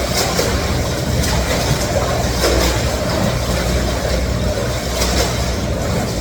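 Counter-current swim machine running at its top speed: a steady low mechanical hum and rumble under a constant rush of churning water, with occasional short splashes.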